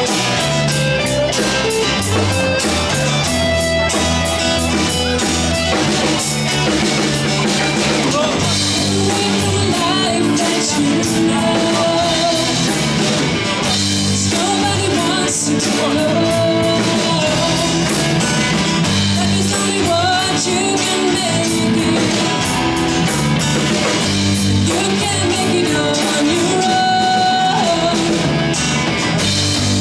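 Live rock band playing: drums on a Ludwig kit, electric guitars and a strummed acoustic guitar, with a woman singing lead.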